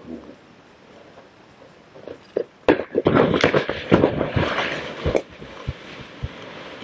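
A bouldering climber coming off the rock as his grip fails: after a quiet start, a couple of sharp knocks, then a loud flurry of thuds and scuffling as he lands beside the crash pad and spotter, close to the microphone.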